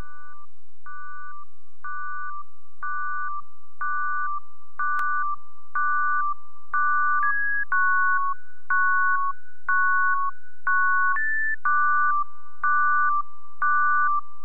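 Background music: a simple synthesizer tune of short high beeping notes, about one group a second, over a steady held tone, each group starting with a faint click.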